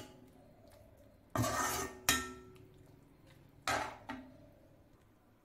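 Metal ladle stirring thick spinach dal in an aluminium kadai, scraping against the pan three times in short strokes.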